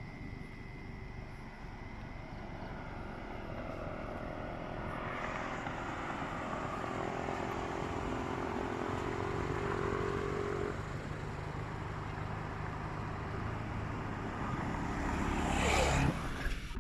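A vehicle engine running, slowly growing louder, with a quick sweep in pitch as it passes close near the end.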